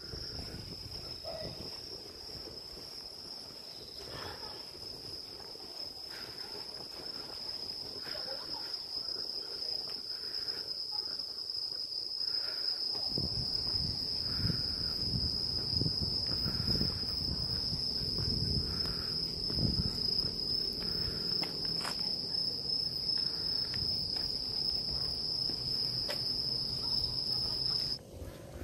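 Insects buzzing in one steady high-pitched tone that cuts off suddenly near the end, with a low rumble coming in about halfway.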